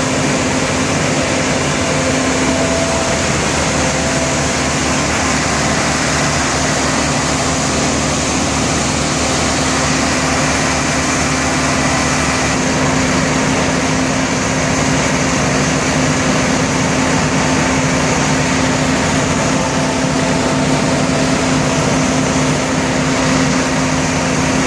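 Maximus tracked screening plant running, its diesel engine giving a loud, steady drone with a constant low hum under dense mechanical noise.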